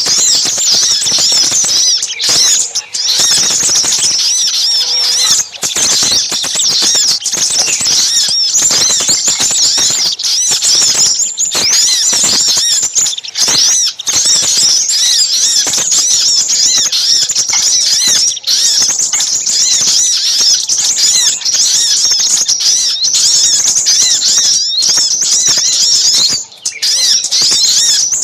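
Dense, unbroken high-pitched chirping and twittering of small birds, many short calls overlapping with rapid up-and-down sweeps. This is a bird-trapping lure recording mixing noisy little spiderhunter calls with crimson sunbird calls.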